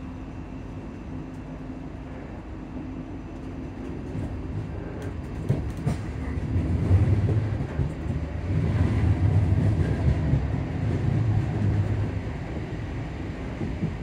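Class 334 electric multiple unit heard from inside the carriage while moving: a steady hum from the traction motor cooling fans under a low rumble of motors and wheels that grows louder through the middle and eases near the end, with a few clicks over the rails about five seconds in.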